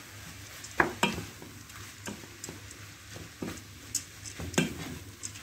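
Wooden spoon stirring chopped shrimp and vegetables in a stainless-steel pot, with irregular scrapes and light knocks against the pot over a faint frying sizzle.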